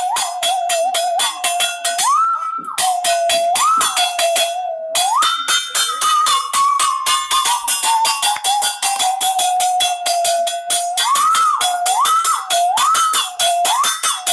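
Comic sound effect: a clear whistle-like tone that swoops up and down, with one long slow fall in the middle, over a fast, steady clicking beat. It breaks off briefly twice early on.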